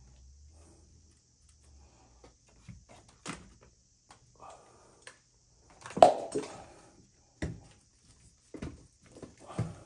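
Scattered knocks and clanks of hands and tools handling a main water shut-off valve and its copper pipe, the loudest about six seconds in, followed by several lighter knocks.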